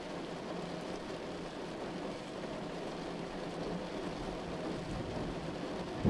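Steady rain: an even hiss of falling rain that keeps the same level throughout.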